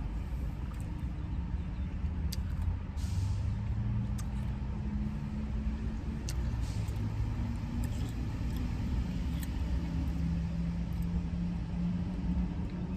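Car engine running steadily with a low rumble, while a few light clicks sound on top.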